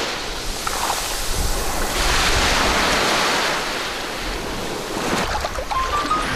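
Churning, splashing water, a steady rushing noise that grows louder about two seconds in. A few short notes, each a step higher than the last, come in just before the end.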